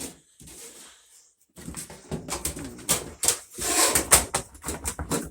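Irregular rustling and crackling from dryer lint being handled and picked through, starting about a second and a half in.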